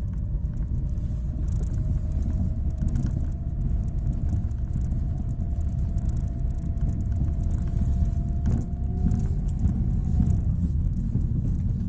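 Lada Vesta driven slowly over bumps, with a heavy rumble of road and suspension and irregular, rapid rattling knocks from the front left of the car: a fault symptom in the front suspension area. A faint whine rises slightly in pitch and stops about ten seconds in.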